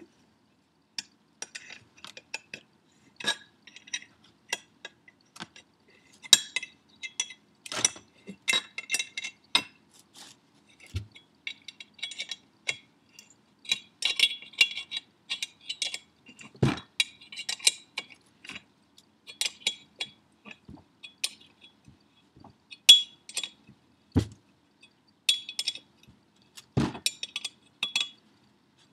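Steel wrench clinking on the nut of a turbocharger's V-band clamp as the clamp is worked tight around the turbine housing: runs of quick metallic clicks and clinks, broken by a few dull knocks.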